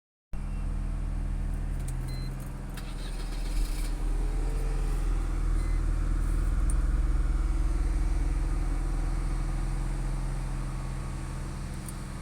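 A Mercedes car's engine idling steadily with a low hum that swells slightly in the middle, with a few light clicks and jingles about three to four seconds in.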